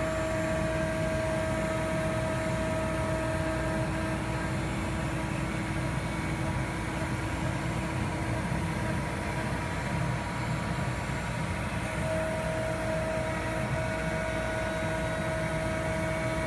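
CNC router cutting with a flat end mill: the spindle and dust collection run steadily, with a higher steady whine over the hum that drops out about four seconds in and comes back about twelve seconds in.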